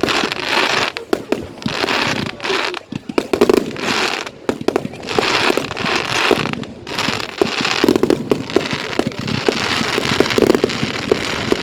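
Fireworks going off in a rapid run of crackling and popping, many sharp small bangs over stretches of hiss.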